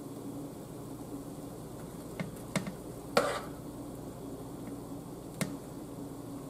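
A metal spoon clicking and scraping against a skillet and into stuffed bell peppers as filling is scooped and packed in: a few light, separate clicks over a steady low hum.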